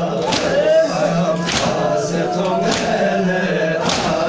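Crowd of men chanting a Balti noha in chorus, with the whole group striking their chests in unison (matam), a sharp slap about once a second.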